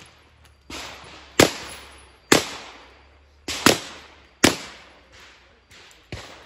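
Handgun shots: four loud shots roughly a second apart, each trailing off in a short echo, with several fainter shots in between.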